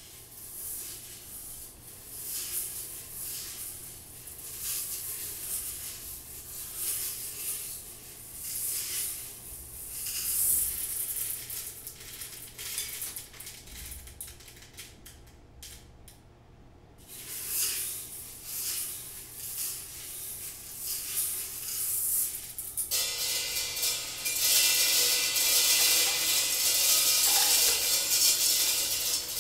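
Dried seeds swirled in a round glass bowl, a hissing rattle that swells and fades about every two seconds. About 23 seconds in, the seeds rain onto a cymbal lying flat on the table and the tablecloth: a louder, dense pattering with the cymbal ringing under it.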